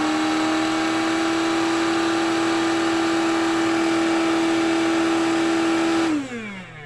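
Cordless Tineco wet-dry floor cleaner's motor running on battery with a steady whine, then switched off about six seconds in and spinning down with a falling pitch.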